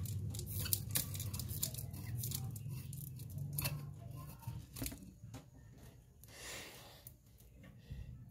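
Scraping and clicking of a 40-watt incandescent bulb's metal screw base being twisted out of its ceiling lamp socket, a run of short irregular clicks over low handling rumble.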